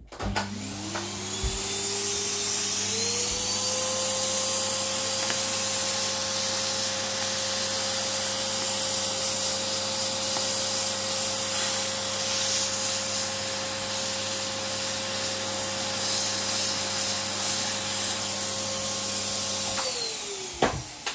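Vacuum cleaner with a small brush nozzle run over model railway track. It is switched on with a rising whine as the motor spins up, runs steadily with a hissing rush of air, then is switched off near the end, the whine falling away.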